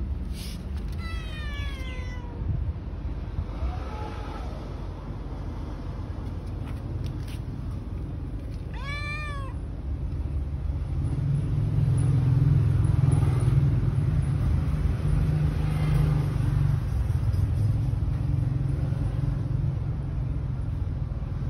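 Domestic cat meowing three times: a short falling call about a second in, a faint call near four seconds, and a clear rising-then-falling meow about nine seconds in. From about eleven seconds a loud low rumble takes over.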